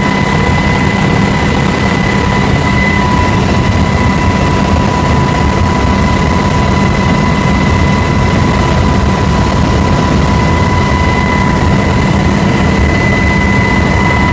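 Steady, loud aircraft cabin noise in flight: a low engine drone with a constant high-pitched whine over it.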